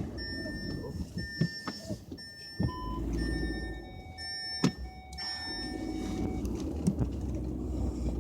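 Car interior with the engine idling and an electronic warning chime repeating steadily, the kind a car sounds when a door is open. A single sharp thunk about halfway through.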